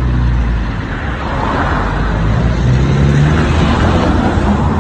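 A motor vehicle's engine running close by in street traffic: a steady low hum whose pitch rises a little around the middle.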